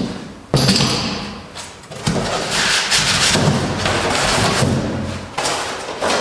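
Packaging being handled during unboxing: rustling and scraping with a few thumps, starting suddenly about half a second in.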